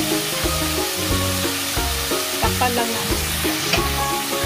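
Raw chicken pieces sizzling in hot oil in an enamelled cast-iron pot, under background music with a stepping bass line and melody.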